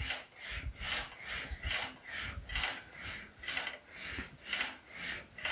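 English wheel rolling a sheet-metal fender panel back and forth over a low-crown lower anvil, stretching the metal. It makes a rhythmic rolling swish about twice a second, each pass swelling and fading.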